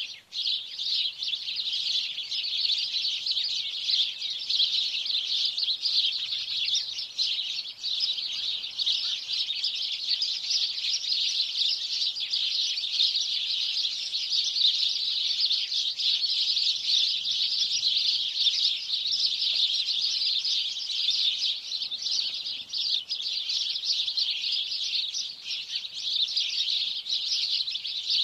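Dense, unbroken chorus of many small birds chirping rapidly and high-pitched, with no pause.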